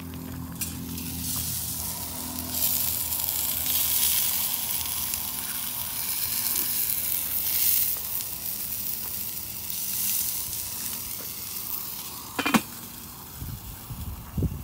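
Chicken breasts sizzling over charcoal on the grate of a small Weber charcoal kettle grill, a steady hiss once the lid is off. Near the end a single sharp clank as the metal lid goes back on.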